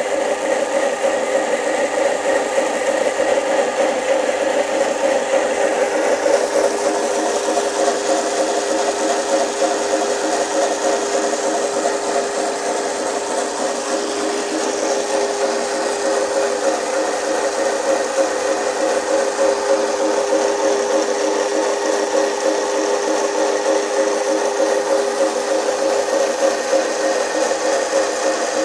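Hardie Model 14 pressure washer pump running steadily, belt-driven by an old electric motor: a constant mechanical hum with no change in speed.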